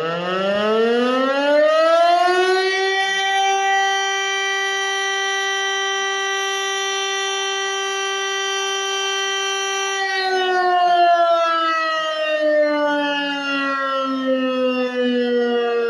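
East German DS977 motor siren, heard close up, winding up: its pitch climbs for the first few seconds, holds one steady tone for about seven seconds, then slowly falls as the rotor runs down.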